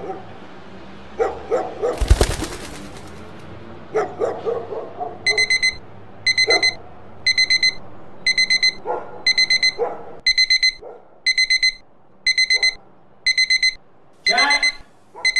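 A dog barks several times, with a loud crash about two seconds in. From about five seconds in, a phone alarm beeps in quick groups of four, about once a second, with a couple of cries bending in pitch near the end.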